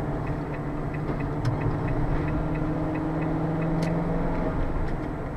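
Car engine and road noise heard inside the cabin through a dashcam's built-in microphone. The engine hums steadily and eases off near the end. A light, regular ticking runs along with it, a little over three ticks a second.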